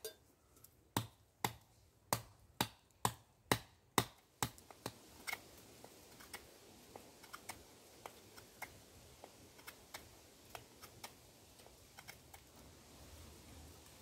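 A run of sharp taps at a steady rhythm, about two a second, then from about four and a half seconds in fainter, scattered clicks from hand work at the camp.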